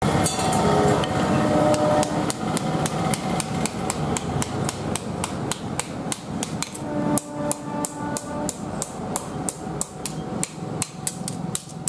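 Hand hammer striking a red-hot steel billhook blade on an anvil in steady, rapid blows, about four a second, as the blade is hand-forged.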